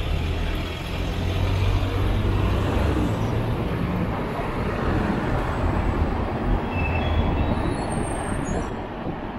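Steady city road traffic noise heard while riding, with a low engine drone from nearby vehicles that swells about a second in and eases near the end.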